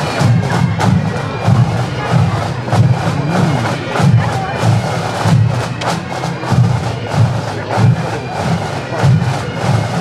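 Massed Highland pipe bands playing a march on the move: many bagpipes with their steady drones over a rhythmic beat of snare, tenor and bass drums.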